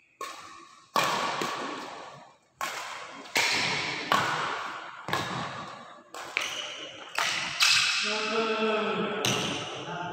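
Badminton rally: rackets striking the shuttlecock about ten times, each hit a sharp pop followed by a long echo in the hall. A player's voice calls out about eight seconds in.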